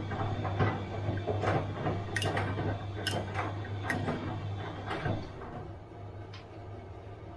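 Bosch washing machine running: a steady low hum with a string of clicks and knocks from the turning drum, then quieter from about five seconds in as the hum stops, with one more click later.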